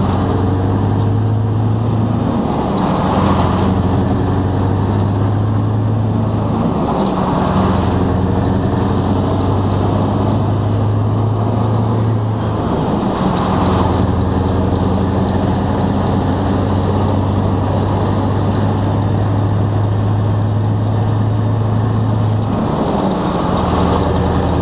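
Scania R500's V8 diesel engine running as the truck drives, heard from inside the cab: a steady engine note that drops out and comes back at a different pitch several times, with a faint high whistle rising and falling over it.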